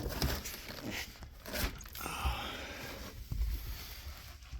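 Handling noises in a rusty car trunk: scraping and rustling with a few light knocks as things are moved about.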